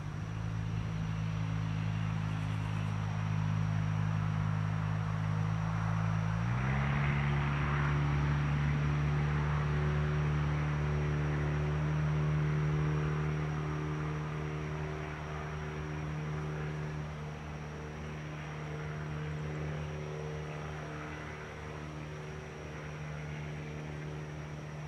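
Steady low mechanical hum of several tones that shifts slightly up in pitch about six and a half seconds in, over a faint chirring of evening insects.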